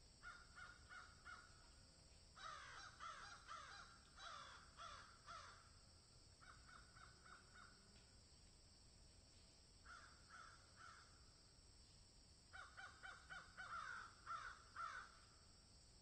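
Crows cawing: several bouts of short caws in quick runs, with pauses of a second or two between bouts.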